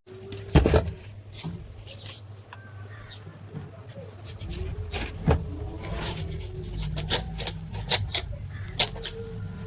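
Repeated sharp clicks and light metallic clatter, like small hard parts or tools being handled, over a steady low hum.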